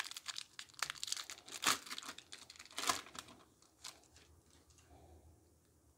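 Foil Pokémon booster pack wrapper being torn open by hand: about three seconds of crinkling and tearing, with two sharper rips about one and a half and three seconds in.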